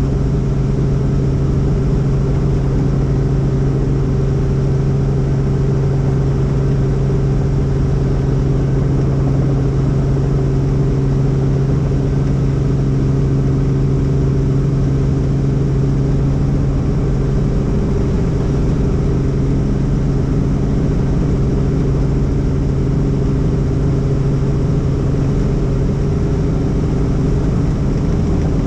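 Helicopter in flight: a steady, loud engine and rotor drone with a constant low hum that does not change in pitch or level.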